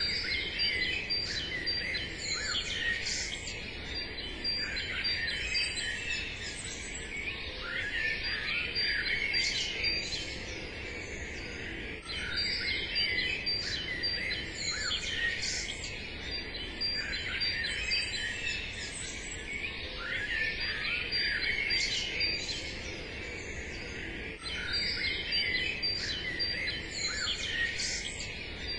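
Many small songbirds chirping and singing over one another in a dense chorus, over a steady faint background hiss.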